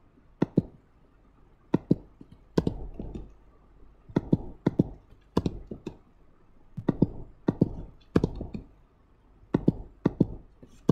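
Computer keyboard keystrokes and mouse clicks: sharp clicks in pairs and small clusters about every second, as numbers in a text field are edited.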